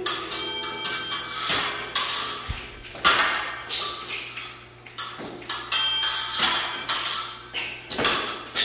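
Épée blades striking and sliding against each other, sharp metallic clicks about twice a second at an uneven pace, several leaving a brief ring.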